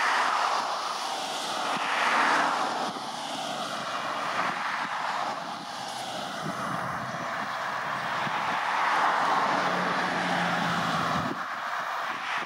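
Diesel-electric locomotives approaching under power: a steady engine and turbocharger rumble with slowly shifting higher whining tones, and a low engine drone that drops away abruptly near the end.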